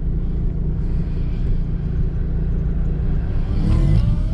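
Dodge Viper SRT's 8.4-litre V10 idling, a steady low rumble heard from inside the cabin. Near the end a second car, an Ariel Atom, passes close by on the track, its engine rising quickly in pitch under acceleration.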